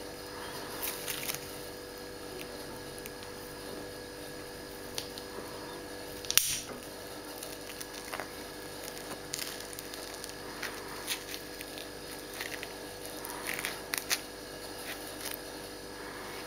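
Opinel folding knife handled in knit gloves: glove fabric rustling and small scattered clicks, with one sharper metallic click about six seconds in, over a faint steady hum.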